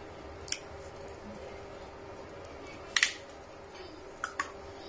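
Thin plastic water bottle being handled and its cap twisted open: a few sharp plastic clicks, with one louder crackle about three seconds in and two quick clicks near the end.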